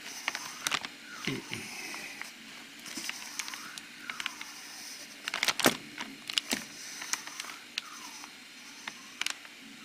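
DLE-222 four-cylinder two-stroke model aircraft engine being turned over slowly by hand at the main shaft. Its pistons push air through the ports with a soft wheezing hiss that rises and falls every second or two, with a few sharp clicks.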